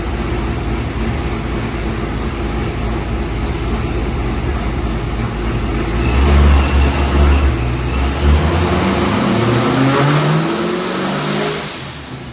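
ProCharger-supercharged V8 of a C7 Corvette Z06 running at low revs with a deep, steady note. About six seconds in it grows louder, then the revs climb steadily with the pitch rising until the note drops away near the end.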